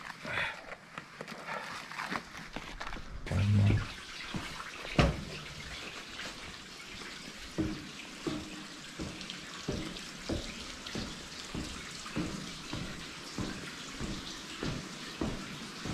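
Footsteps walking through a narrow sandstone rock crevice, about two steps a second, over a steady hiss. A dull thump and a sharp knock come a few seconds in.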